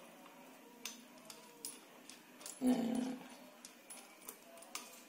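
Faint clicks and taps of small metal parts as a pressure washer's water pressure regulator is fitted and its bolts hand-tightened. A short low vocal sound comes about two and a half seconds in and is the loudest thing heard.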